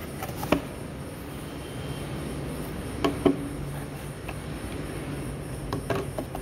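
Cardboard gift box and packaging being handled: a few sharp taps and knocks as items are lifted out of the box, over a steady low hum.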